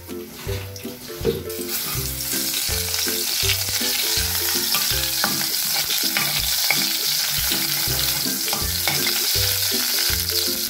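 Minced garlic frying in hot oil in a caldero: a steady sizzle that grows louder about a second and a half in, with a spatula stirring it around the pot.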